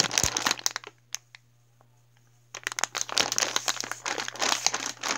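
Plastic squishy packaging crinkling as it is handled: a short burst of crinkling at the start, a pause of about a second and a half, then steady crinkling from about two and a half seconds in.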